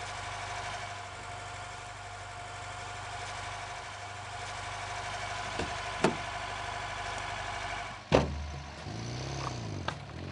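Small Ford hatchback's engine running steadily, heard from inside the cabin, with a couple of sharp knocks about six seconds in. About eight seconds in the sound changes abruptly.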